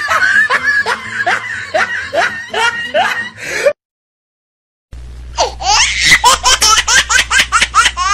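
Laughter in a quick run of short bursts, each falling in pitch. It breaks off into dead silence about three and a half seconds in, and a higher-pitched run of laughter starts again a little past five seconds.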